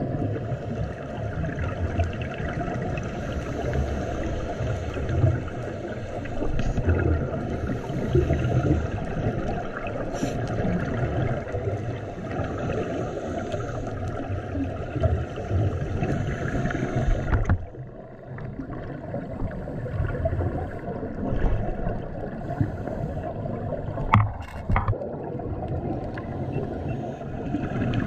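Muffled underwater sound recorded through a camera's waterproof housing: a steady low rush of water with gurgling swells from a scuba diver's bubbles. The sound changes abruptly about two-thirds of the way through, and a couple of sharp clicks come near the end.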